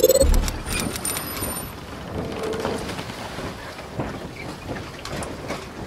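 Logo-intro sound effect: a low boom at the start, then a steady hiss full of scattered crackles and clicks.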